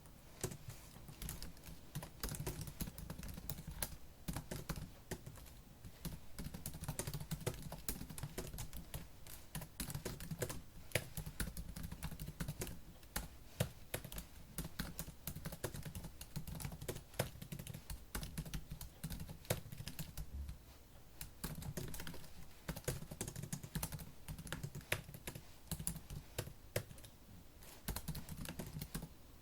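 Fast typing on a laptop keyboard: a dense, uneven run of key clicks with a couple of brief pauses.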